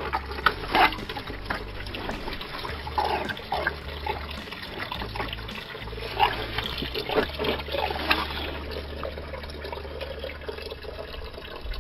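Engine coolant draining from the disconnected bottom radiator hose of a Peugeot 307, pouring and splashing steadily into a plastic bowl as the cooling system is drained.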